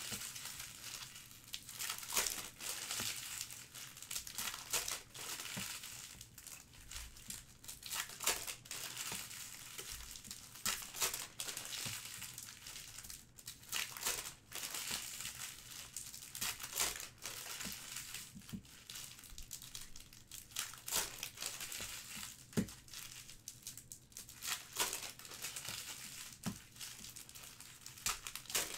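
Plastic trading-card pack wrappers being crinkled and torn open by hand, an irregular crackling with short sharp rips.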